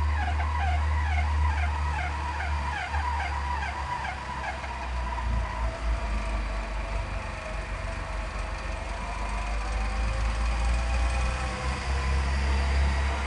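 Off-road 4x4 engine running hard with a steady low drone. In the first few seconds a repeating wavering whine rises and falls about twice a second, then smooths out into a slower wavering tone.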